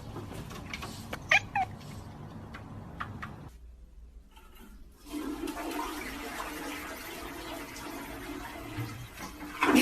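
A cat meows briefly about a second in. After a short break, water rushes steadily with a low hum.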